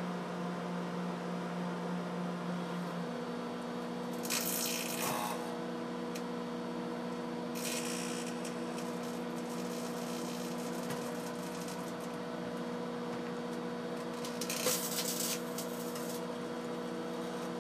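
Microwave oven running with a steady electrical hum, whose pitch shifts once about three seconds in. Three short bursts of hiss come about four, eight and fifteen seconds in.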